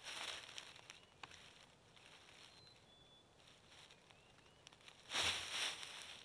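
Rustling and shuffling in dry fallen leaves underfoot. There is a short burst at the start and a louder one about five seconds in, with a few faint high chirps between them.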